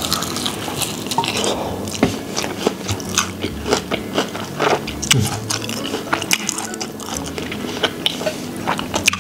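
Close-up biting and chewing of sauce-coated fried chicken, with many short crunches one after another.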